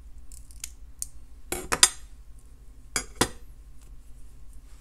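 Light metallic clicks and clinks of jewellery pliers and head-pin wire as the wire end is wrapped around a wrapped loop on a bead dangle, with two louder clusters of clicking about one and a half and three seconds in.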